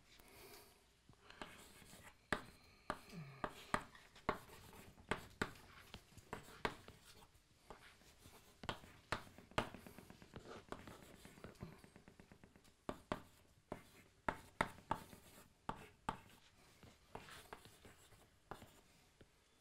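Chalk writing on a blackboard: a run of sharp, irregular taps with light scratching between them as the letters are formed.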